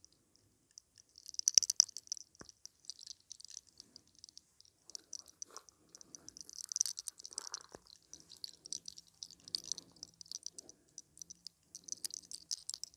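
Hair cracking: small tufts of hair gripped at the roots and pulled taut against the scalp, giving irregular runs of sharp, dry crackles and clicks, loudest a little under two seconds in.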